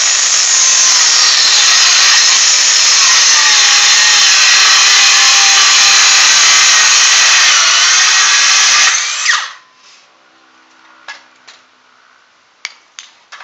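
Handheld circular saw cutting across a wooden board, running under load for about nine seconds and then stopping suddenly. A few light knocks follow near the end.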